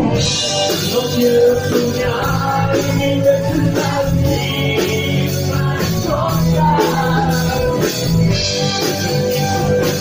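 Live rock band playing a ballad: electric guitars and drums, with a man singing.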